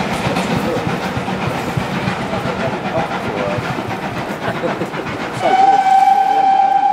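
Steam train running along the line, a steady rumble of wheels on rail. About five seconds in, the locomotive's whistle sounds one long steady note that slides up briefly as it opens and then holds, louder than the running noise.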